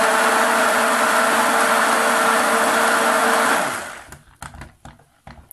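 Hand-held immersion (stick) blender running steadily in a bowl, blending chestnut-and-lye paste into soap oils to bring them to emulsion. It is switched off about three and a half seconds in, and a few light clicks and knocks follow.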